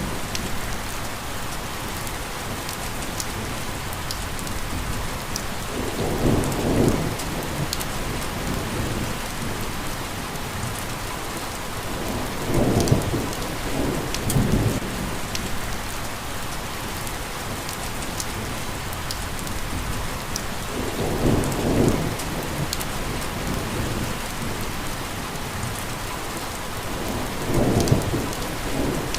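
Steady rain hiss with scattered sharp drop ticks. A low rumble swells and fades about four times, roughly every six to eight seconds.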